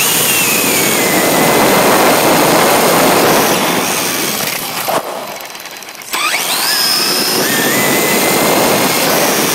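An RC car's motor whining at high speed, heard from a camera riding on the car, under heavy wind and road rush. It eases off about five seconds in, then accelerates again, the whine climbing steeply.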